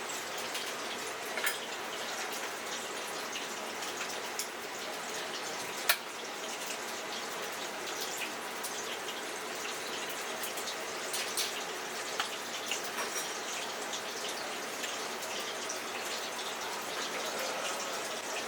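Steady rush of running tap water, with a few sharp clinks on top, the loudest about six seconds in.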